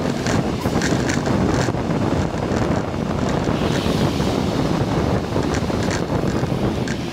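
Wind buffeting the microphone of a camera on a moving vehicle, a steady rushing noise mixed with road noise and faint scattered knocks.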